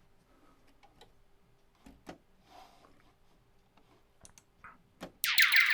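Faint scattered clicks, then about five seconds in a 'Frozen Lake Stone skipping' sound-pack sample starts loud: a dense run of falling, lasery chirps, the ringing ice sound of a stone skipped across a frozen lake.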